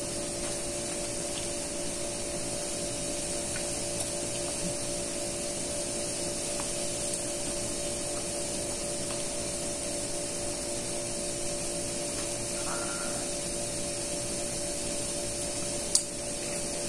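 Steady mechanical hum with two constant tones and a faint high hiss, like a motor or fan running, with one sharp click near the end.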